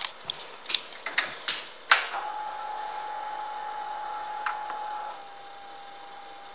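A run of sharp clicks as the ignition key and switches of a 2013 Kawasaki Vulcan Vaquero 1700 are worked. About two seconds in, the electrics and the radio come on and a steady electrical hum with hiss starts. The hiss drops away a little after five seconds, and the hum carries on just before the engine is started.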